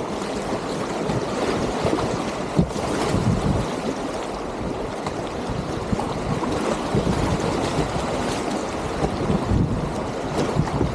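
River whitewater rushing and splashing around a kayak running a rapid, with wind noise on the microphone.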